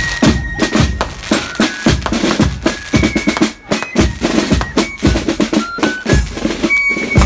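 Marching band playing in procession, snare and bass drums beating under short high melody notes.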